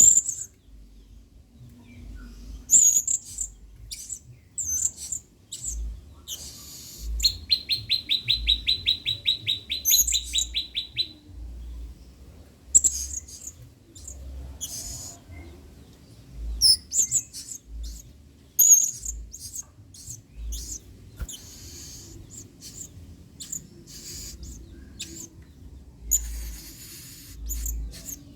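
Blue-crowned hanging parrot (serindit) calling: short, sharp, high-pitched chirps at irregular intervals, with a rapid trill of about four seconds near the middle.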